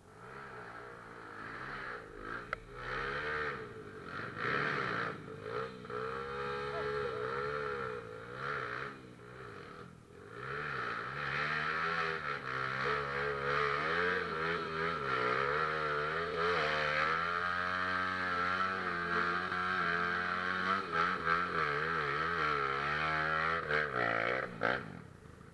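Trail motorcycle engine running and revving, its pitch rising and falling, easing off briefly about ten seconds in and dropping away near the end.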